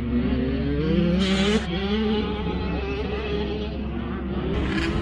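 Motocross motorcycle engines running, the pitch wavering as the revs rise and fall, with a brief hissing surge about a second in.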